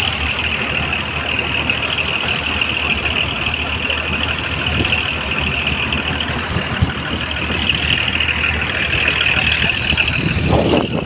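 Fishing boat's engine running steadily under way, with water rushing and splashing along the hull.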